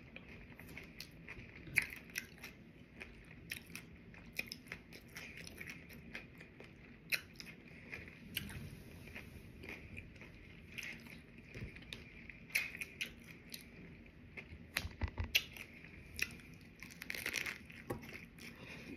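A person chewing crunchy hard-shell tacos, with irregular crisp crunches and mouth sounds, and a fresh crunching bite near the end.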